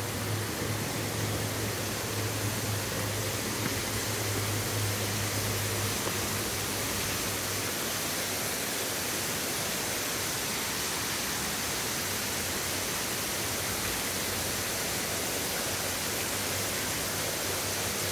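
Steady hiss of rushing, falling water, with a low hum under it for the first several seconds.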